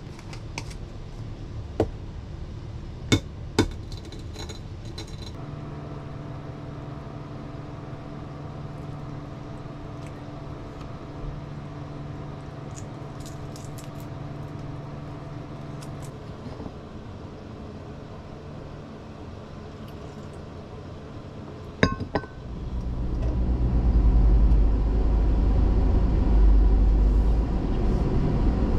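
Light clinks of a glass salt jar and porcelain on a tabletop as boiled eggs are salted and peeled, with a steady hum through the middle. After a sharp knock about three-quarters of the way through, the low rumble of a camper van driving takes over and is the loudest sound.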